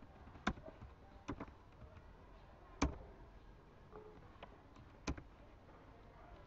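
Computer mouse buttons clicking: a few sharp separate clicks, some in quick pairs like double-clicks, the loudest about three seconds in.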